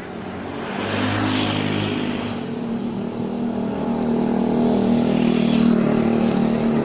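A motor vehicle's engine running close by, growing louder in the first second and then holding steady, with a hiss of tyres or wind over it.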